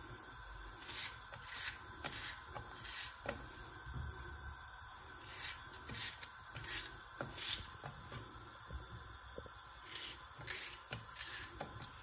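A small knife cutting through an onion held in the hand, short crisp cuts at an irregular pace.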